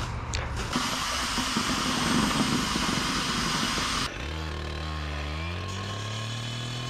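Gas-powered cut-off saw running at high speed with a dense rushing noise. About four seconds in the sound changes abruptly to a lower, clearer engine note that slowly rises in pitch.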